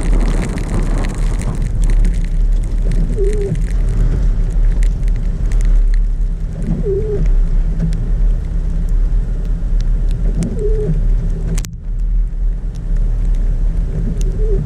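Car driving, heard as a steady low rumble inside the cabin, with a short squeak repeating about every three and a half seconds and a sharp click near the end.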